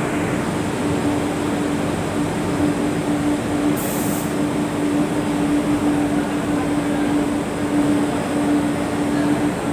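Steady machinery din of industrial drum washing machines in a denim wash plant, with a constant low hum and a brief hiss about four seconds in.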